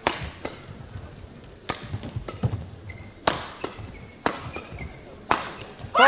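Badminton rally: shuttlecock struck back and forth by rackets, about two sharp hits a second, with court-shoe squeaks on the court mat around the middle. A player's shout begins right at the end.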